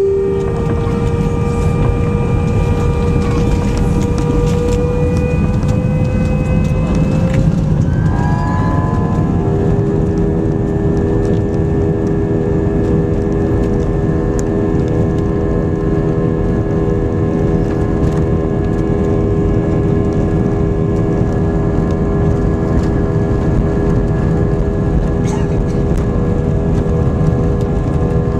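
Airbus A320 jet engines heard from inside the cabin during the takeoff run: a loud rumble under several whining tones that climb slowly, shift about eight seconds in, then hold steady at takeoff power.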